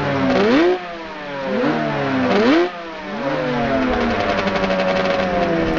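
Racing motorcycle engine accelerating hard through the gears: the pitch climbs and drops sharply at a shift twice, then holds high and slowly falls, and the sound cuts off suddenly at the end.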